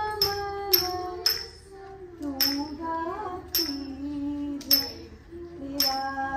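Bharatanatyam dance music: a female voice singing a Carnatic melody, punctuated by sharp, ringing strikes of small hand cymbals (talam) keeping the beat, several in the first second and a half and again near the end.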